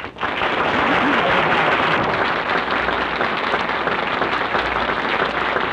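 Studio audience applauding, dense and steady, on a narrow-band 1937 radio recording.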